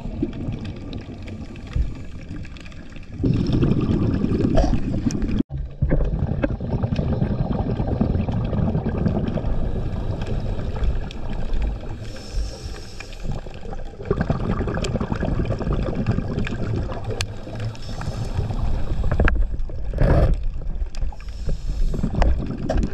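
Underwater scuba breathing: a diver's regulator with rumbling, gurgling bursts of exhaled bubbles and hiss between them, heard through the camera's waterproof housing. The sound cuts out sharply for an instant about five and a half seconds in.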